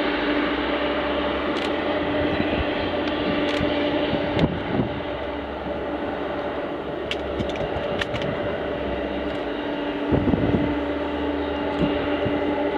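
Boeing 747-400F jet engines running steadily at idle, a continuous rushing noise with a steady hum, just before they are shut down.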